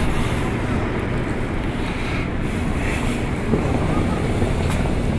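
Steady wind rumble on the microphone over general city street noise, with faint voices in the background.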